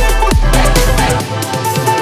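Background electronic music with a heavy beat, its kick drums falling in pitch about twice a second.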